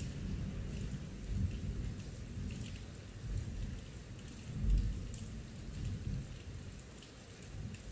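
Thunder rumbling low and long, swelling several times with the loudest roll a little past the middle, over the steady hiss of heavy rain.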